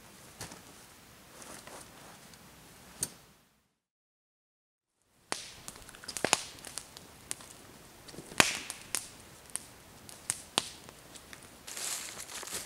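Footsteps on dry forest floor: scattered crackles and snaps of leaf litter and twigs underfoot. There is a second or so of dead silence a few seconds in, where the audio cuts out.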